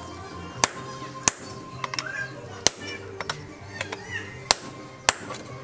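Hammer blows on a handled hot-cut chisel driven into a red-hot steel chainsaw bar on an anvil to cut it. There are five sharp, ringing metal strikes at uneven intervals, with a few lighter taps between them.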